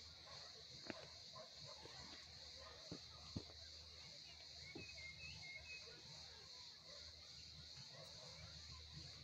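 Near silence: quiet woodland ambience with a steady high hiss, three soft knocks in the first three and a half seconds as the camper handles his pillow and settles back, and faint bird-like chirps about five seconds in.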